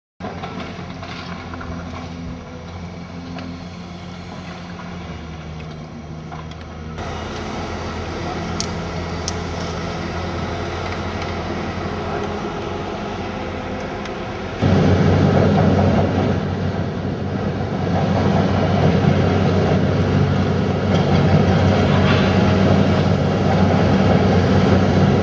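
Heavy demolition machinery's diesel engine running steadily, with a few sharp knocks, and much louder from about 15 seconds in.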